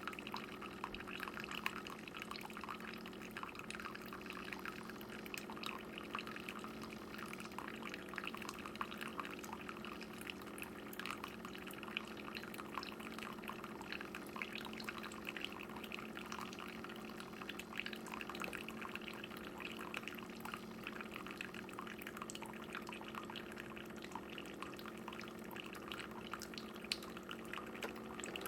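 Keurig single-serve pod coffee maker brewing: coffee pouring and dripping into the cup over a steady low hum.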